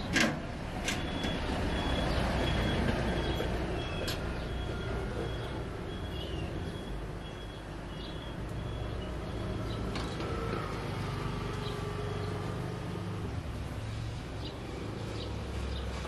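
Steady low rumble of a motor vehicle's engine, with a run of short, evenly spaced high beeps, about three a second, over the first half and a few light clicks.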